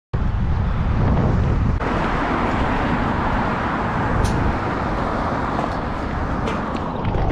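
Steady rush of wind and road noise on a camera riding a fixed-gear track bike, with road traffic going by. It cuts in suddenly at the start, and a few light ticks sound over it.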